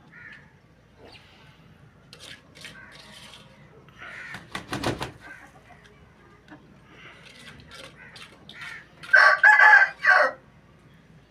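Aseel rooster crowing once near the end, a loud crow of about a second in three pulses, after fainter fowl calls. A short sharp burst of noise comes about halfway through.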